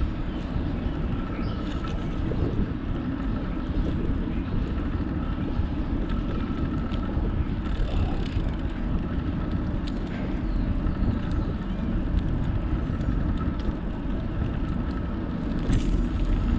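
Wind buffeting the microphone of a camera on a moving bicycle: a steady low rumble, with a faint steady whine and a few light clicks.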